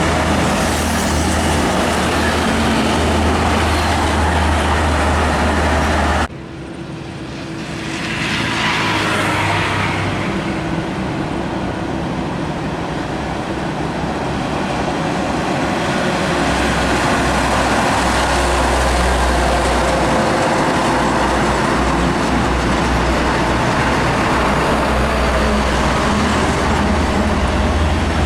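Heavy diesel trucks driving past on a highway: a deep engine drone with tyre and road noise. The sound breaks off abruptly about six seconds in, then builds again as another truck approaches and passes.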